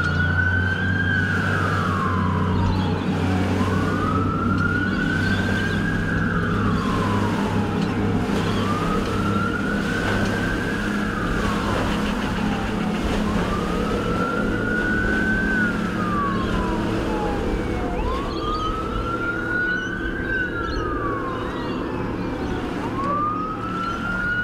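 Fire boat's wail siren, each cycle rising quickly and falling more slowly, repeating about every five seconds, over the steady drone of its twin outboard motors running at speed.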